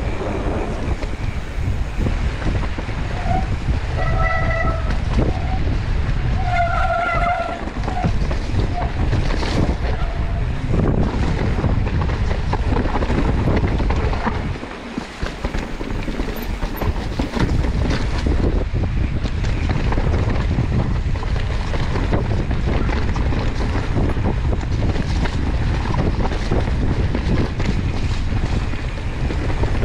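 Mountain bike descending a wet dirt trail: wind rumbling on the mounted camera's microphone, tyres running over mud and roots, and the bike rattling with frequent knocks. Two short pitched sounds come about four and seven seconds in, and the noise drops briefly about halfway through.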